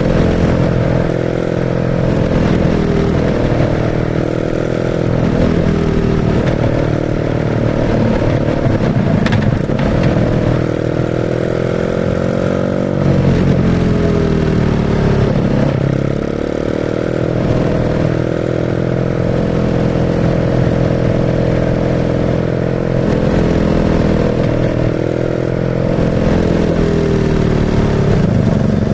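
BMW R nineT's 1170 cc air/oil-cooled boxer twin running through a Pro Race GP S1 aftermarket exhaust while being ridden. Its pitch rises and falls again and again as the rider opens and closes the throttle through the gears.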